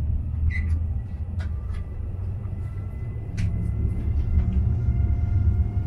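Low rumble inside the cabin of a Sapsan high-speed train as it pulls out of the station, growing a little louder about halfway through, with a few faint clicks and a faint steady high tone over it.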